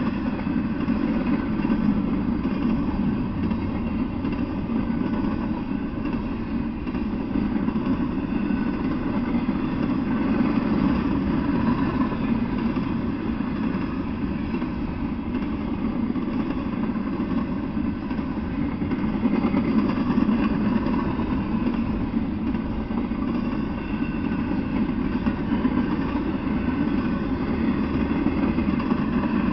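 Freight train of intermodal well cars rolling past, a steady rumble of steel wheels on rail.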